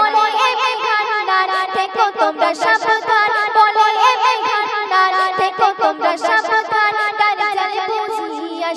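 A girl singing a Bengali gojol, a devotional song, in long ornamented melodic runs.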